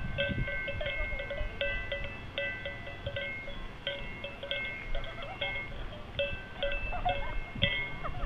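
Small metal bells ringing over and over in an uneven jangle, a few fixed pitches sounding in turn, over a low rumble.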